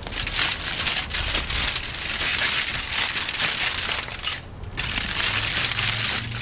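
Aluminium foil crinkling and crumpling as hands fold it tightly around a smoked brisket, with a short lull about two-thirds of the way through.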